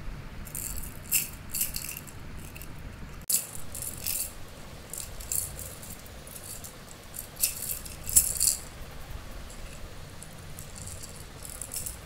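A baby shaking a toy rattle: short bursts of rattling every second or two, the loudest about eight seconds in.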